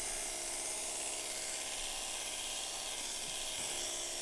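Electric pet hair clippers running with a steady buzz and hiss, clipping the fur on a cat's belly.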